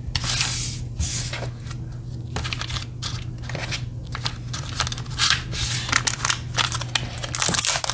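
Hands handling a small paper sticker box and clear cellophane sticker sleeves on a desk: an irregular run of rustles and crinkles.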